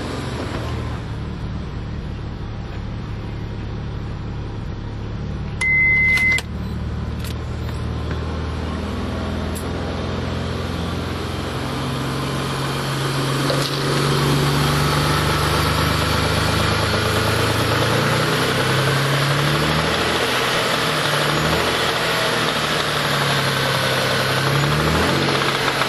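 Mitsubishi 3000GT/Dodge Stealth twin-turbo 3.0 L V6 running with rod knock from a spun number-four rod bearing. It gets louder about halfway through, and its pitch rises and falls several times near the end. A short high beep sounds about six seconds in.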